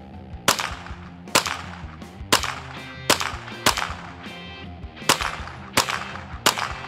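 GSG-16 .22LR semi-automatic, straight-blowback rifle firing eight single shots at an uneven pace, each a sharp crack about half a second to a second and a half after the last. A faint ring follows a couple of the shots. The rifle cycles each round without a jam.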